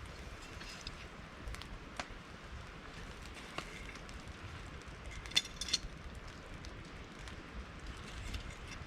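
Wood campfire crackling: scattered sharp pops and ticks over a soft steady hiss, with a louder pair of pops about five and a half seconds in.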